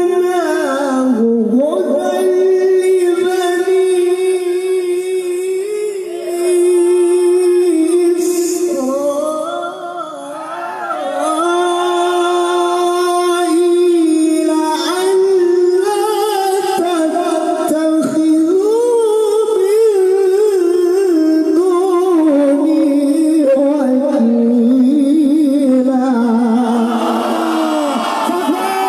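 A qari's solo voice reciting the Qur'an in melodic tilawah style, holding long notes with ornamented, wavering turns.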